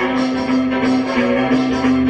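Music with a steady rhythm over a held low note.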